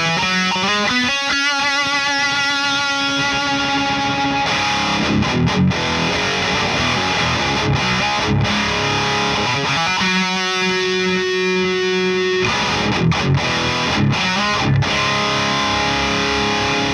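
Distorted electric guitar through a Friedman Runt 50 amp, boosted by a Klon-style overdrive pedal. It plays riffs with bends and vibrato and a long held note in the middle.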